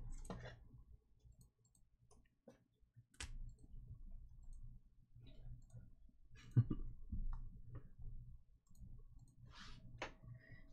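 Scattered faint clicks and taps, a few seconds apart, over a steady low hum.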